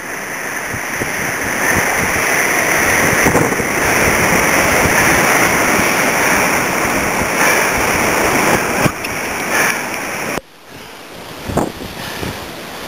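Whitewater rapids rushing loudly around a raft, heard from a helmet-mounted camera, with some wind on the microphone. The rush builds over the first seconds and drops off suddenly about ten seconds in, leaving a quieter rush with a few splashes or knocks.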